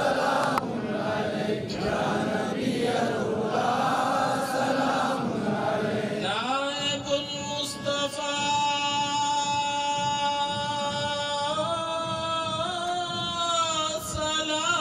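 Men chanting the Arabic devotional salaam to the Prophet together. From about six seconds in, a single male voice over a microphone holds one long melismatic note, stepping up in pitch twice and dipping near the end.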